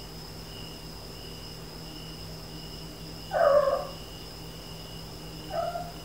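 Ragdoll cat meowing twice: a loud meow about three and a half seconds in, then a shorter, quieter one near the end. These are her talking-to-herself calls.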